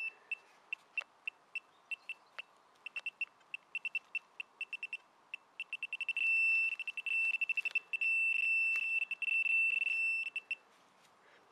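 Handheld metal-detecting pinpointer probe beeping in a single high tone, the beeps coming faster from about three seconds in and merging into an almost steady tone around six seconds in as the probe closes on the buried metal target, then cutting off about a second before the end.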